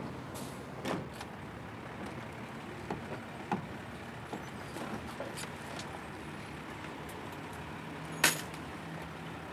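Truck cab door and its handle being worked: a few light clicks and knocks over a faint low rumble, with one sharp knock about eight seconds in.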